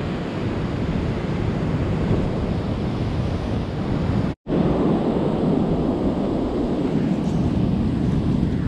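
Ocean surf breaking and washing up a sandy beach, mixed with wind buffeting the microphone. The sound cuts out for an instant a little under halfway through, then comes back with more low rumble.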